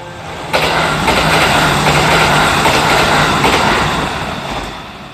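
Kintetsu 22600-series four-car limited express electric train running through the station without stopping. A loud rush of wheel and rail noise starts suddenly about half a second in as the train reaches the platform, with a steady low hum under it, and fades after about four seconds as it goes by.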